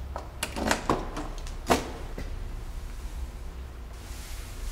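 Key working in the trunk lock of a Honda sedan, a few small clicks, then the trunk latch releasing with one sharp click about a second and a half in.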